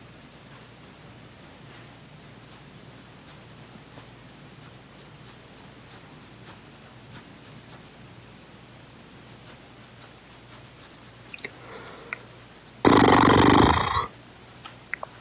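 Quiet room tone with faint ticks, then near the end a loud breathy exhale about a second long, right at the phone's microphone.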